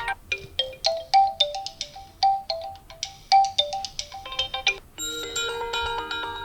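Built-in ringtones of a Realme 9 smartphone playing: a melody of short, bright notes, then a different ringtone with held, layered tones starting about five seconds in.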